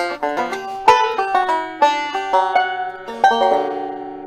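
Banjo music: quick picked notes, ending on a chord that rings and fades away near the end.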